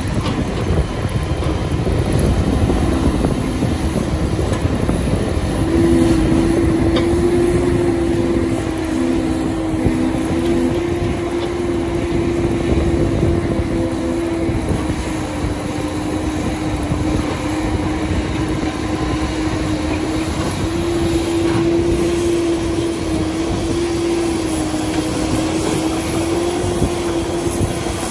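Sumitomo SH300 hydraulic excavator running under load while it digs and swings, a steady engine sound with a strong whine that wavers slightly in pitch.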